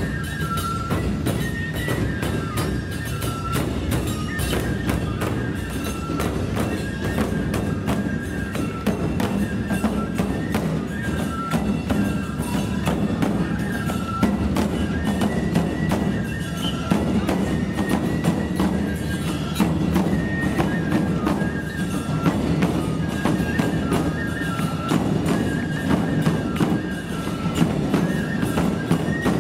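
Nebuta bayashi festival music: bamboo flutes repeating a short high melody every couple of seconds over taiko drums and the rapid, steady clashing of small hand cymbals.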